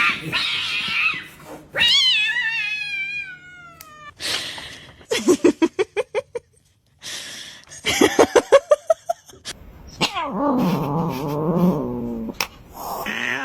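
Domestic cat yowling and caterwauling in protest at having its claws trimmed: a falling yowl about two seconds in, two runs of rapid stuttering cries around five and eight seconds, a long low moaning yowl from about ten seconds, and another yowl near the end.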